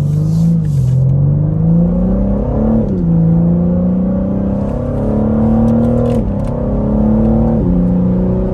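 BMW M3 Competition's twin-turbo straight-six accelerating hard, heard from inside the cabin: the engine note climbs in pitch and drops sharply at each upshift, three times.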